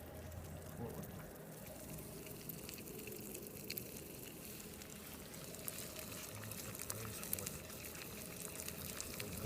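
Faint sizzling and crackling from a campfire meal cooking: an egg frying in butter in a small pan, with water steaming in a mess tin. Scattered sharp pops grow more frequent after a few seconds.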